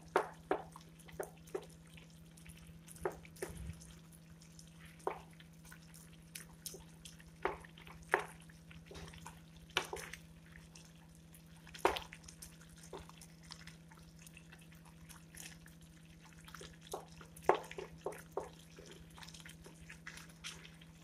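Wooden spatula stirring thick pav bhaji vegetable and mashed-potato mix in a kadhai: irregular wet squelches and light knocks against the pan, over a steady low hum.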